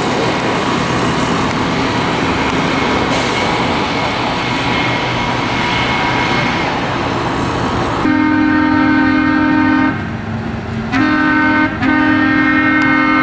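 Diesel-powered rail maintenance machines rolling past on the track with engine and wheel noise, then, about eight seconds in, an air horn on one of the machines sounds: a long blast, a short one, then another long blast.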